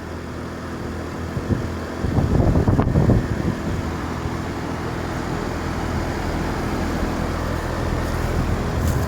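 Goodman heat pump outdoor unit running steadily in cool mode: the compressor's low hum under the rush of the condenser fan. About two seconds in, wind gusts on the microphone for around a second.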